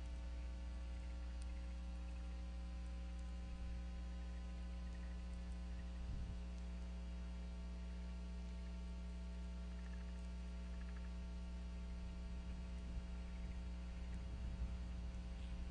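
Steady electrical mains hum, a stack of even tones under a low hiss, from the nest camera's audio feed, with a few faint ticks.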